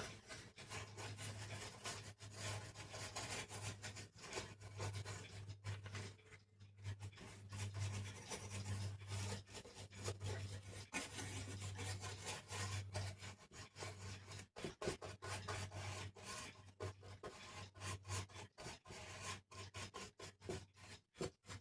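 Faint rubbing and scraping with small irregular clicks, as parts of a vintage cuckoo clock are handled and wiped during cleaning and oiling. A low hum comes and goes through the first two-thirds.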